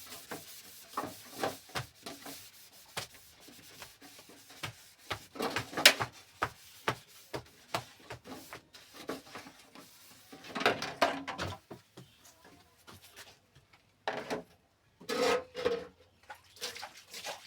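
Intermittent rubbing and scraping, with scattered knocks and clicks of objects being handled; the loudest knock comes about six seconds in.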